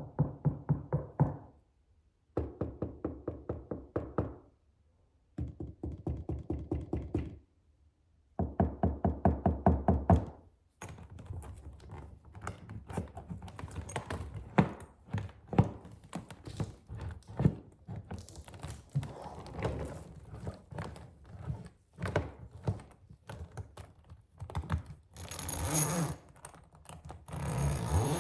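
Fingertips tapping quickly on a suitcase in four short bursts, then a looser mix of lighter taps, clicks and scratching on it. Near the end a zipper-like rasp starts.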